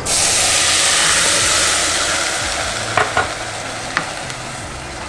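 Chicken stock poured into a hot pot of toasted couscous hisses loudly the instant it hits, and the sizzle dies down slowly as the pot cools. A spatula stirring the pot taps it a few times near the end.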